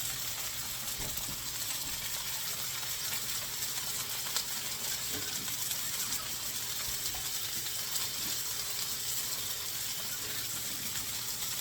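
Steady sizzle of food searing on a hot stovetop grill, with a couple of light clicks partway through.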